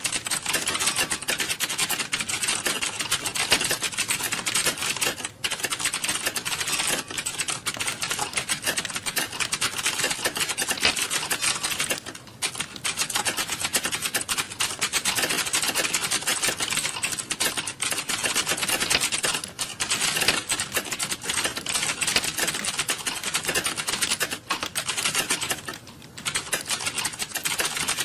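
Computer keyboard typed on quickly and continuously, a dense stream of key clicks broken by a few short pauses.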